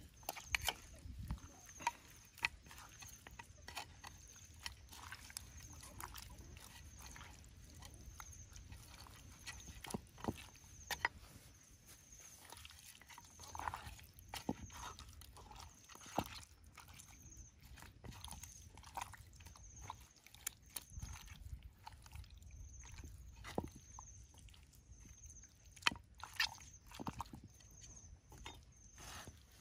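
Soft, wet squelching and irregular small clicks of hands kneading raw skinned frogs with seasoning in a pot, the metal spoon now and then tapping and scraping the rim.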